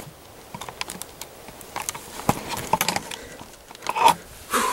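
Handling noise inside a hunting ground blind: irregular clicks, scrapes and rustling of gear being moved, with two louder rustles near the end.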